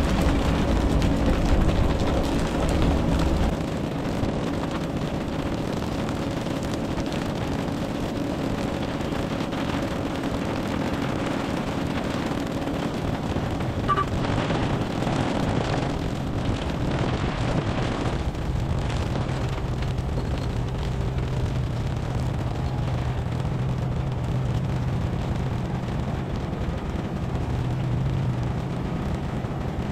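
Boat engine running steadily under wind noise on the microphone. The engine's note drops lower about two-thirds of the way through.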